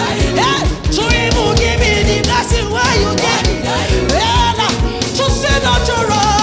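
Upbeat gospel praise music from a church band, with a steady drum beat and bass under singing voices.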